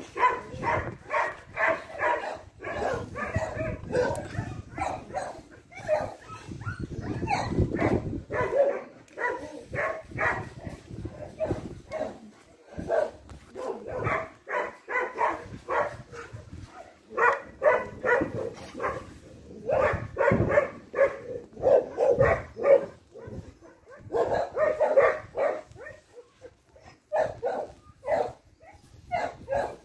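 Dog barking repeatedly, in runs of several quick barks a second with short pauses between runs.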